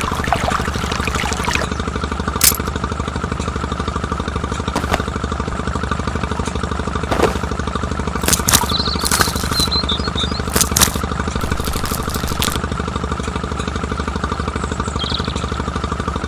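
A small motor runs steadily with a fast buzzing rattle, with scattered light clicks and knocks, the most of them in the middle.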